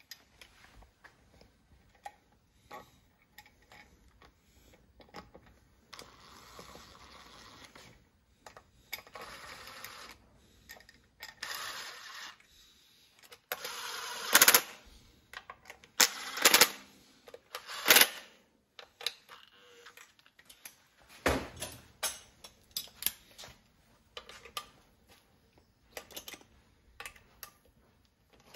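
Cordless 12-volt driver running in short spells as it runs in the bolts of a throttle body on a supercharger, with several sharp metal clanks of tools and parts in the middle, then a run of quick ratchet clicks near the end.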